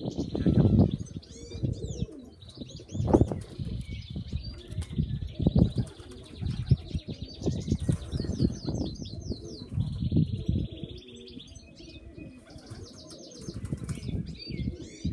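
Pigeons' wings flapping close by in irregular bursts, with small birds chirping and twittering higher up.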